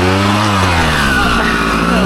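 Dirt bike engine revving up and down as the throttle is worked: the pitch climbs briefly, sags through the middle and picks up again near the end.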